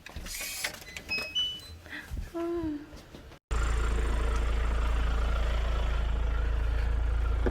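A few short, high electronic tones and light clicks. Then, after a sudden cut about three and a half seconds in, a car engine runs with a loud, steady low rumble.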